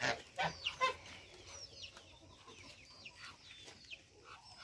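Chickens clucking, with many short, high, falling chirps. The calls are loudest in the first second.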